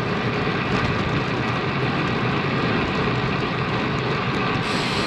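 Steady rush of wind over an action camera's microphone, mixed with the hum of bicycle tyres rolling on asphalt, while riding a road bike.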